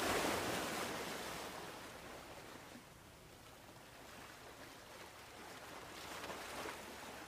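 Faint wash of sea and wind noise, louder at first and dying away over about three seconds to a low steady hiss.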